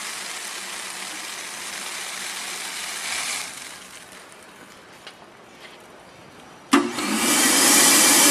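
Rapeseed pouring from a vacuum loader's hopper into a cardboard box, a steady hiss that fades out after about three and a half seconds as the hopper empties. Near the end a sharp click, and the loader's vacuum motor starts, running loud and steady with a low hum, to draw the next charge of seed up the hose.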